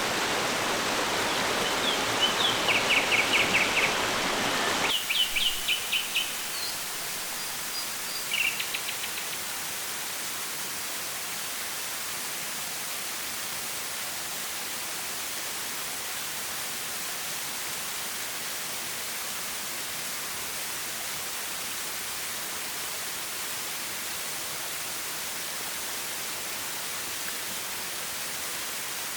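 Flowing stream with small birds chirping: quick repeated trills in the first several seconds and a last short call about eight seconds in. About five seconds in, the water sound turns abruptly thinner, into an even hiss that holds steady.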